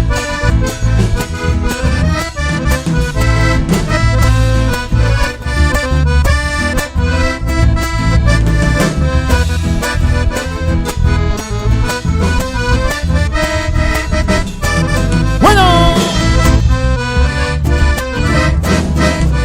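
Live accordion-led band playing an instrumental passage of an Argentine folk dance tune (a gato), with bass and a steady driving beat under the accordion melody.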